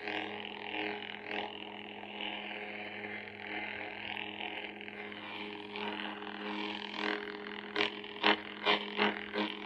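Lightsaber hilt's sound board playing a steady, low, buzzing hum that swells and wavers as the saber is moved: the smooth-swing effect. Near the end there is a quick run of short, sharp sounds.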